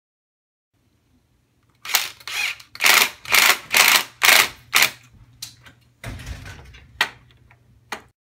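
Cordless drill/driver running in a quick series of short trigger bursts, about two a second, as it drives screws into pine gate slats, followed by a few knocks of the boards being handled.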